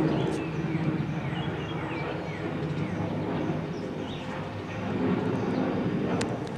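Jet engines of a Boeing C-32 (a military Boeing 757) rumbling steadily as the aircraft passes during a touch-and-go. The noise dips briefly and swells again about five seconds in, with small birds chirping faintly over it.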